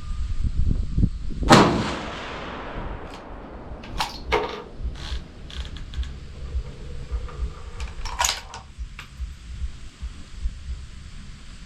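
A single rifle shot about a second and a half in, its report fading slowly across the range, followed by several sharp clicks. Wind rumbles on the microphone throughout.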